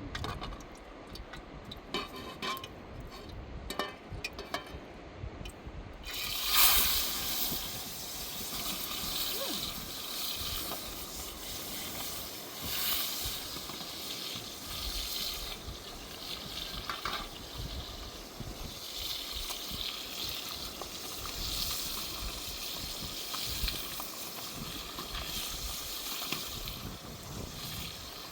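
Water rushing and splashing as a steady hiss, coming in suddenly about six seconds in after a few seconds of small clicks and knocks.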